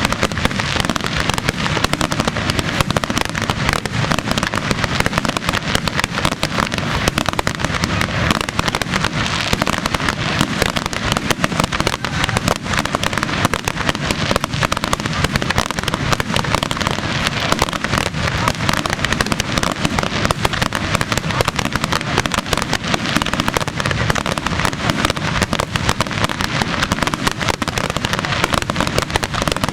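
Aerial fireworks display going off in a dense, continuous barrage: sharp bangs and crackles packed closely together with no let-up.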